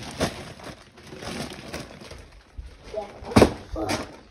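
Wrapped presents being handled and shifted: gift wrapping paper rustling and crinkling, with a few sharp knocks, the loudest about three and a half seconds in.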